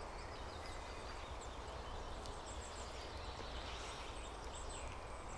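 Quiet woodland ambience: a steady low rumble with faint, short, high bird chirps now and then.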